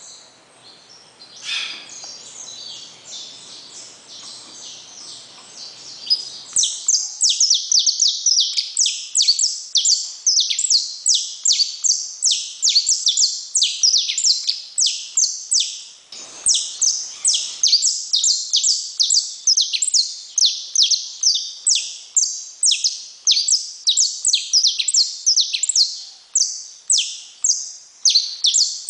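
Saffron finch (canário-da-terra) singing: a long, unbroken run of short notes, each sweeping down in pitch, about three a second. The song is faint at first and turns loud about six seconds in.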